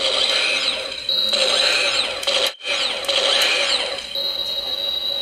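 Hasbro Spengler Neutrona Wand replica playing its electronic firing sound effect through its speaker: a hissing stream with a steady high whine and repeated falling sweeps. It cuts out for a moment about two and a half seconds in, then fires again.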